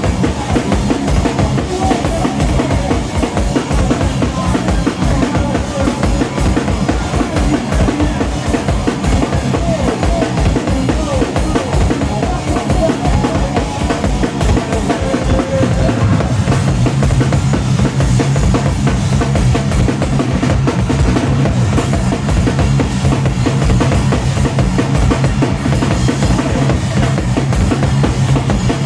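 Loud live noise rock from a drum kit and a distorted bass guitar: very fast, dense drumming with pounding bass drum and snare over a heavy bass line, which settles into a held low note about halfway through.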